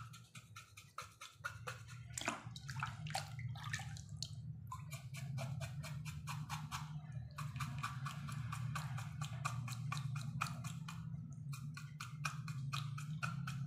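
Rapid rhythmic scrubbing strokes, about six a second with a few short breaks, as a hand rubs and scrapes the hair off a wet cow's snout. A steady low hum runs underneath.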